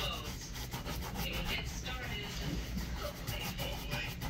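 Leather shoe being worked over during a shoe shine: quick, repeated rubbing strokes.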